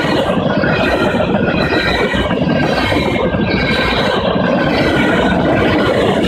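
Freight train's tank cars rolling past, a loud, steady rumble and clatter of steel wheels on rail with thin, high ringing tones above it.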